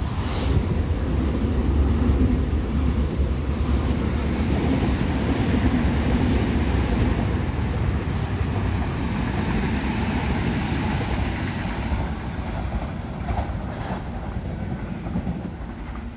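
Double-deck electric passenger train running through the station at speed, a loud rolling rumble that eases off over the last few seconds as it pulls away.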